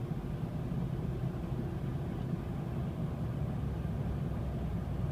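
2006 Dodge Dakota 4x4 with the 4.7 L V8 driving under light acceleration near 40 mph, heard from the cab: a steady low rumble with a held, even drone on top. This is the howling, grinding type of noise the owner is chasing, which seems to come from the front of the truck although the front differential is newly rebuilt.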